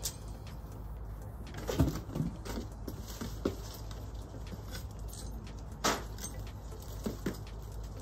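Clinks and clanks of steel lifting tongs and a hanging chain gripping and handling a hot crucible, over a steady low background noise. There are scattered metallic knocks, the loudest about two seconds in and a pair near the end.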